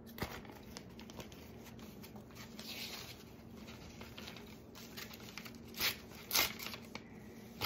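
Magazine page crinkling and rustling as it is handled, with two short, louder rips near the end as the paper is roughly torn.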